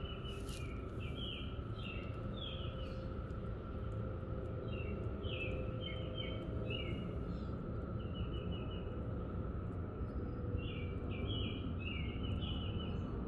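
A bird singing bouts of short, quick chirped notes, a phrase every couple of seconds, over steady outdoor background noise and a faint continuous drone.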